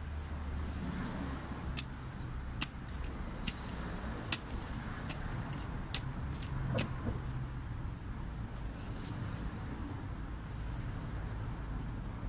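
Small hand trowel digging into dry, crumbly garden soil: soft scraping with a run of sharp clicks, roughly one a second, through the first half, over a steady low rumble.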